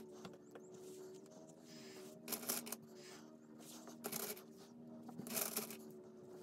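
Satin fabric rustling as it is handled, folded and smoothed by hand, with three louder rustles about two, four and five seconds in.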